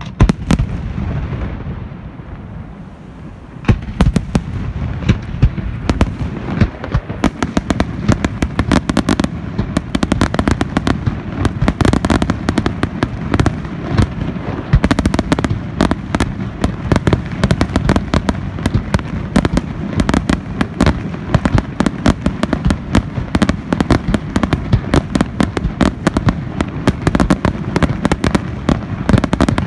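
Aerial fireworks display: a deep shell burst at the start with a rumbling echo, then from about four seconds in a dense, continuous barrage of sharp bangs and crackles, many per second.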